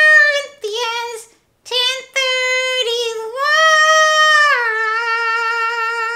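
A woman singing in a high, childlike puppet voice, unaccompanied, finishing a short scripture song. A few short sung notes end in one long held note with a slight wobble from about four and a half seconds in.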